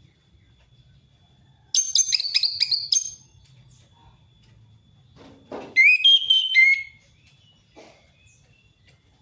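Orange-headed thrush singing: a quick run of sharp repeated notes about two seconds in, then, after a brief low rasp, a loud whistled phrase of sliding notes. A faint steady high tone runs beneath.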